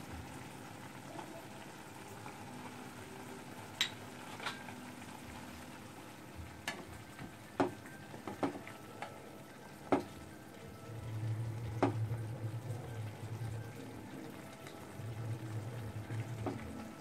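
Mashed bottle gourd sizzling in a pan as tomato purée is stirred in, with the spatula knocking sharply against the pan about seven times in the middle. A low hum comes and goes in the second half.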